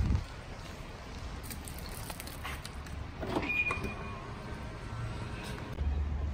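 Low rumble of vehicles in a multi-storey car park, growing louder near the end. There is a thump at the start and a short high beep about three and a half seconds in.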